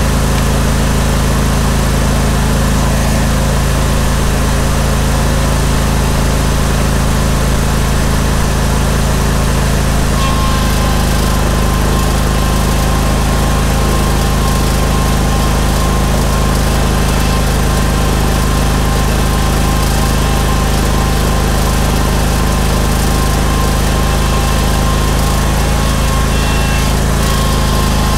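Steel Green spreader-sprayer's Vanguard 21 hp V-twin engine running steadily. A thin steady whine joins it about ten seconds in.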